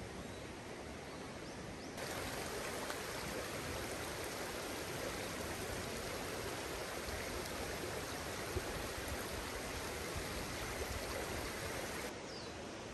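A stream running, a steady rush of water. It gets louder and brighter about two seconds in and falls back shortly before the end.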